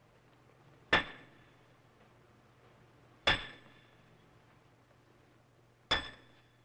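Three sharp metallic knocks, about two and a half seconds apart, each ringing briefly like a hammer striking metal.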